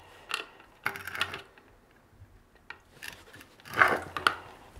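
A metal tool prying and scraping at the child-proof cap of a metal paint tin: scattered metallic clicks and scrapes, a pause, then a busier run of clicking and scraping that is loudest near the end.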